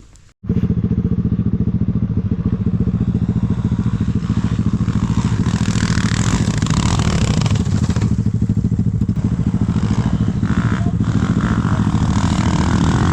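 Enduro dirt bike engine running loud and close at a fairly steady pitch, cutting in abruptly about half a second in.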